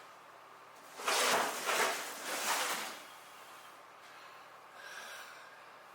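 A person breathing out hard three times in quick succession from the strain of lifting something heavy. The breaths start about a second in and last about two seconds.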